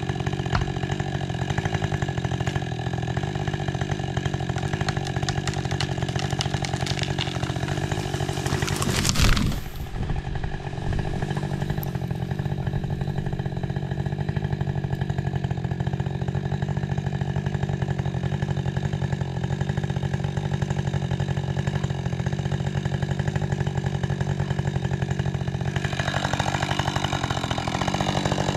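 Husqvarna 550 XP Mark II 50cc two-stroke chainsaw running steadily. About nine seconds in there is a loud, brief rushing burst, and the saw's sound changes near the end.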